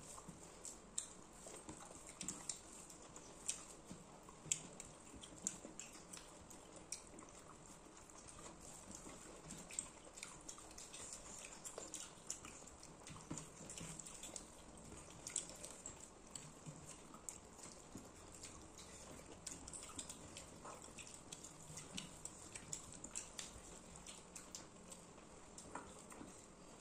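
Quiet eating sounds of people eating rice by hand: chewing with many small, irregular mouth clicks and smacks.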